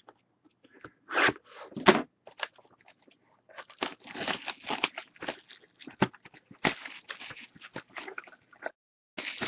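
Card-box packaging being handled and torn open: crinkling and tearing of plastic wrap and card, with two short rustles early and a longer run of crackling from about four seconds in.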